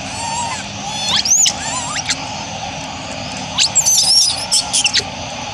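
Young long-tailed macaques giving high-pitched squeals that rise and fall sharply, in a short bout about a second in and a longer, busier cluster around four seconds in.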